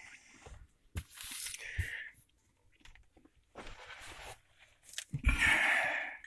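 Rustling and scraping of seatbelt webbing and its parts being handled by hand, in three bursts with a few small clicks, the loudest near the end.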